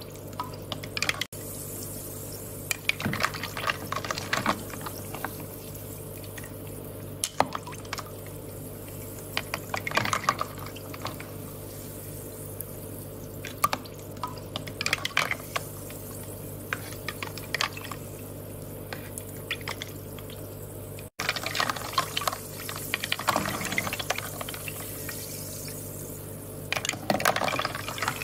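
Water trickling and dripping in small bursts every few seconds, over a steady low hum.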